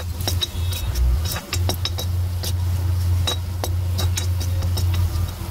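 Metal spoon scraping and clinking against a steel kadhai while stirring chopped vegetables, many quick irregular clinks. A steady low hum runs underneath.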